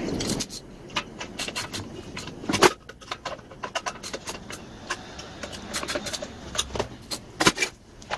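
Clinks, clicks and knocks of hand tools and metal and plastic parts handled while reassembling an engine backpack blower, with the muffler being fitted and the frame moved. They come irregularly, with the loudest knocks about two and a half seconds in and near the end. A steady rushing noise cuts off just after the start.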